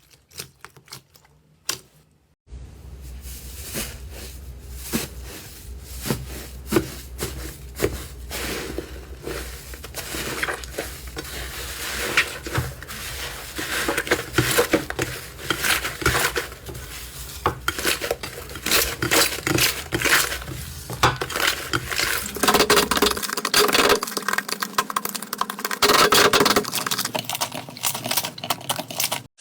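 Slime being worked by hand: a run of sticky clicks, pops and crackles, sparse at first, then dense and louder from about two seconds in.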